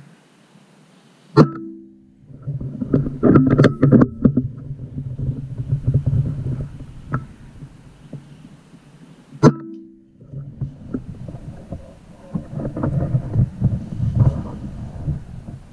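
A BSA R10 Mark II pre-charged air rifle firing twice, about eight seconds apart, each a sharp crack followed by a brief low hum. Between and after the shots, strong gusting wind buffets the microphone.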